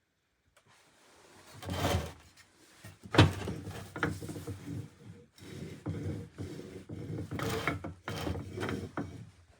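Old meat grinder being handled: its parts rub and scrape with scattered clicks, and there is a sharp knock about three seconds in.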